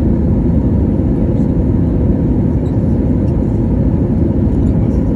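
Steady low rumble inside the cabin of an Airbus A320neo: CFM LEAP-1A engine and airflow noise heard from a seat near the engine.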